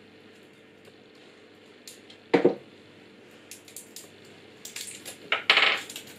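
Stiff plastic battery packaging being twisted and torn open by hand: one sharp snap about two seconds in, then a run of crinkling and crackling plastic toward the end.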